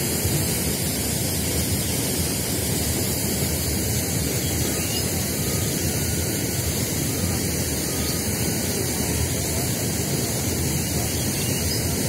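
Steady rush of a fast-flowing, swollen river.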